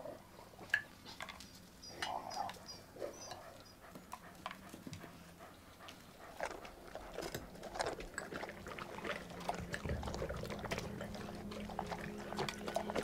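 Dogs eating out of food bowls: a run of small, irregular wet clicks and smacks from chewing and lapping. A steady low music tone comes in near the end.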